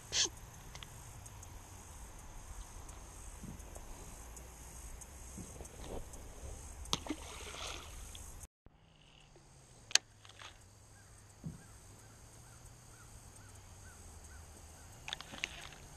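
Quiet outdoor ambience with scattered clicks and knocks of a baitcasting rod and reel being handled and cast. The sharpest click comes about ten seconds in.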